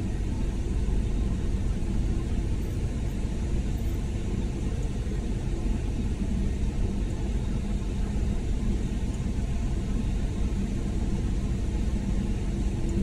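Automatic car-wash gantry running over a car: a steady low rumble of machinery mixed with the wash of water and rotating brushes, with no break or sudden event.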